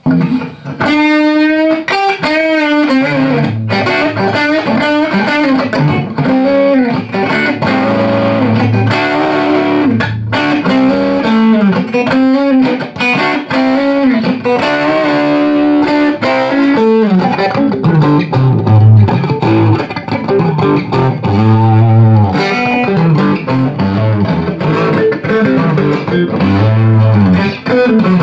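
Telecaster-style electric guitar played through a small D-lab PlexZ tube amplifier built around a 6AQ5 power tube. A wavering bent note comes about a second in, then a steady run of single-note licks and chords.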